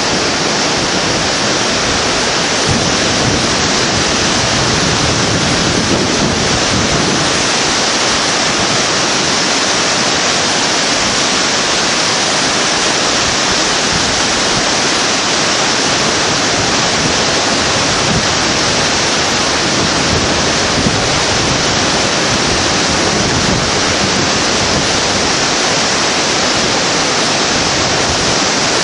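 Fast-flowing glacial river rushing over boulders: a loud, steady rush of water with no change.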